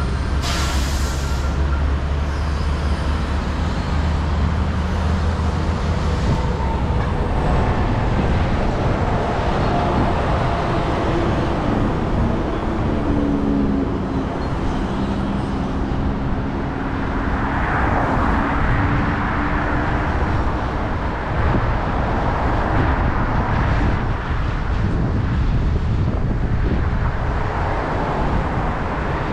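Road traffic: vehicles passing with a steady low engine rumble. There is a short hiss about half a second in, and louder swells of passing vehicles around two-thirds of the way through and near the end.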